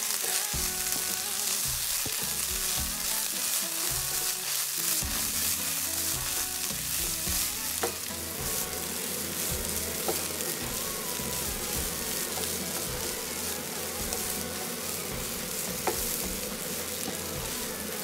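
Rice, diced carrots, peas and onion sizzling steadily as they are toasted in oil in a non-stick pan and turned over with a wooden spatula. A few sharp clicks of the spatula against the pan come about 8, 10 and 16 seconds in.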